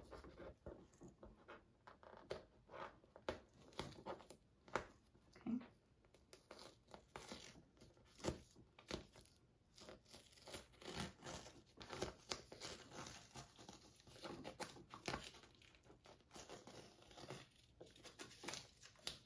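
FrogTape painter's tape being peeled slowly off a textured acrylic painting: faint, irregular crackling and tearing as the tape lifts away from the dried paint.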